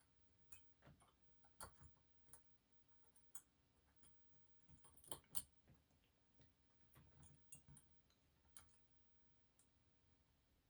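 Faint, irregular clicks and light scraping of a dimple pick working the pins of a Delta dimple lock under tension, with the loudest clicks about five seconds in.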